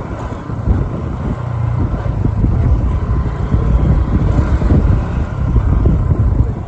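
Loud, uneven low rumble of road vehicle noise mixed with wind buffeting the microphone.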